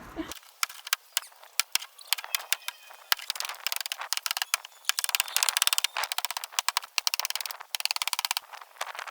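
A stretch of sharp, irregular clicks, with dense runs of very fast clicking rattles about four to six seconds in and again near the end; thin and tinny, with no low end.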